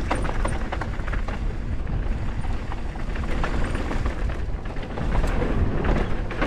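Mountain bike riding down a rough trail: tyres on dirt and stones and the bike clattering over bumps, with many short knocks over a steady low rumble.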